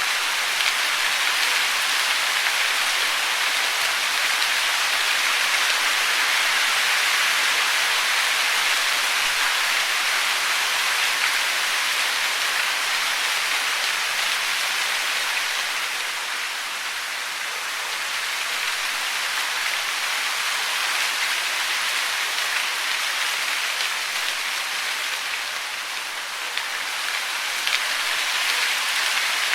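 Steady hiss of falling water, easing off slightly a little past halfway and again near the end.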